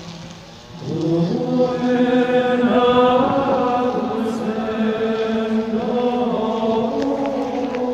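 Chant-like choral music: voices hold long sustained notes in harmony, coming in with a rising swell about a second in and moving to new chords every couple of seconds.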